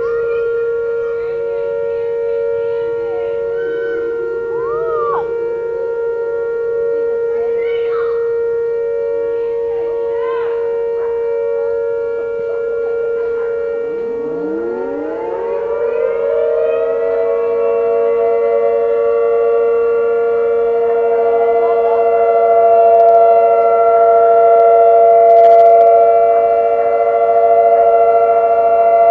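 Outdoor warning sirens sounding a steady Alert tone in a monthly test. The nearest, a Whelen 2806 electronic siren, holds a steady pitch throughout. About halfway through, another siren winds up from a low pitch to a higher steady tone and joins it, and the combined sound gets louder.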